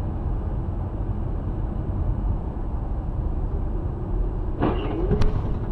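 Steady low rumble of a car driving at speed in motorway traffic, engine and tyre noise picked up by a dashcam inside the cabin. About five seconds in, a brief louder sound wavers in pitch over the rumble.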